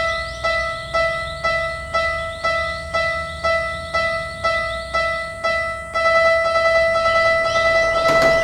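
Japanese level-crossing alarm ringing its "kan-kan" warning tone, about two strikes a second, quickening into a faster, almost continuous ring about six seconds in. A rattling noise, the train beginning to pass, starts near the end.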